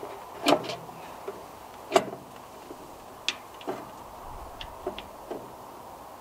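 Irregular sharp clicks and knocks from hands-on work at the tractor, about half a dozen in all, the loudest about two seconds in.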